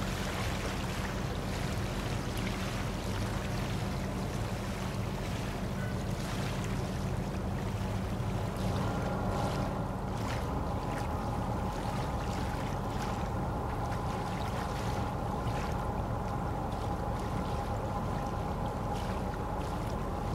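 Steady low drone of tugboat and ship engines carrying across the water. About nine seconds in, a steady higher whine joins it.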